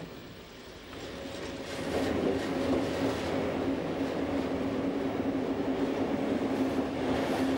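Electric train running along the track, heard from on board: wheel and running noise with a steady motor hum, growing louder about two seconds in.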